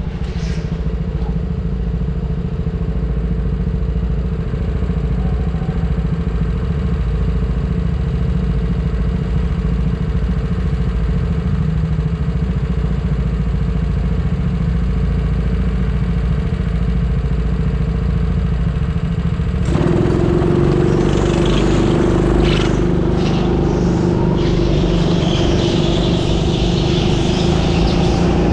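Go-kart heard from on board while lapping an indoor track: a steady low engine drone with a held tone. About twenty seconds in the sound changes abruptly and gets louder, with more hiss and some clatter.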